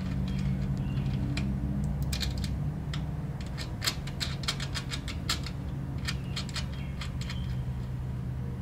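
Small clicks and rattles of wires and metal ring terminals being handled and fitted among the tractor's relay terminals, coming in quick clusters mostly in the middle, over a steady low hum.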